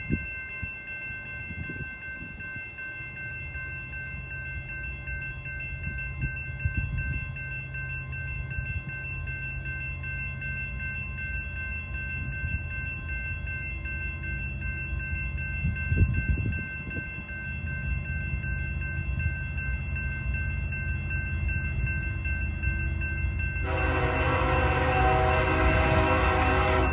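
Diesel freight locomotive approaching, its engine rumble growing steadily louder. About 24 s in its air horn starts sounding a loud multi-note chord as a warning for the grade crossing.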